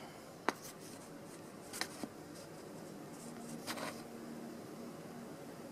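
Faint handling noise of a clear plastic hole punch and a sheet being lined up: a few scattered light clicks and a brief rustle.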